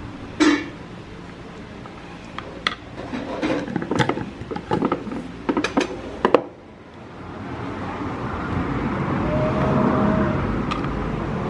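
A plastic spoon stirring thick oatmeal in a bowl, clicking and knocking against the sides in a quick irregular run, with one sharp clink about half a second in. In the last few seconds a broad rush of noise swells up and stays.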